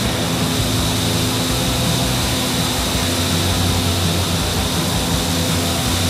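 Vertical wind tunnel for indoor skydiving running at flying speed: a steady, loud rush of air from its fans, with a low hum underneath.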